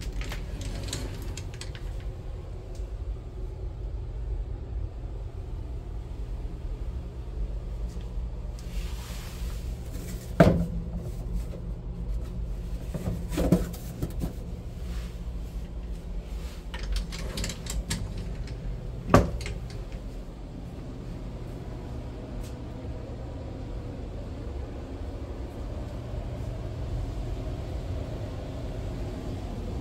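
Louvered bifold closet doors being opened, the panels giving a few sharp knocks and clacks as they fold and are handled, over a steady low rumble.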